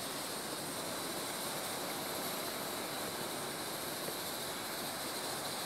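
Hailstorm: hail and heavy rain falling, a steady, dense, even hiss with no separate strokes standing out.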